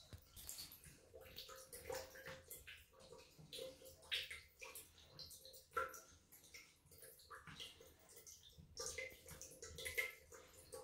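A thin stream of water running from a shower tap and splashing on the tiles, with a cat lapping at the stream, giving many small irregular wet clicks and splashes.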